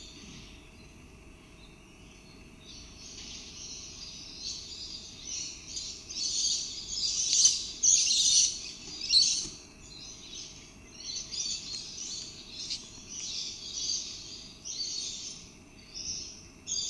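A bird giving a run of harsh, rasping calls, about two a second, starting a few seconds in and loudest in the middle, over a faint steady high hum.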